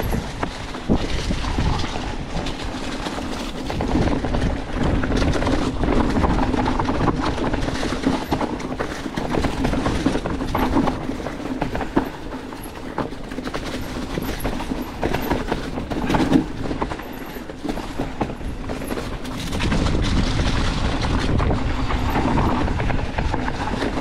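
Mountain bike riding down a rough dirt trail: continuous rolling and rattling of tyres, chain and frame over the ground, with many small knocks.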